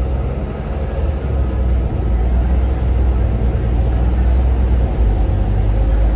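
Volvo B7RLE single-deck bus under way: its rear-mounted straight-six diesel and road noise heard inside the passenger saloon as a steady low drone.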